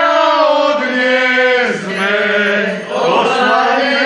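Mourners' voices chanting a mock funeral lament in long, wavering sung notes, with short breaks about two and three seconds in.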